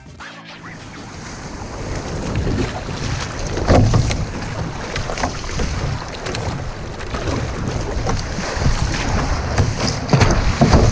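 Breaking surf washing around a fishing kayak as it is paddled out through the shore break, with wind buffeting the microphone and splashes of the paddle and water against the hull. Louder surges of water come about four seconds in and again near the end.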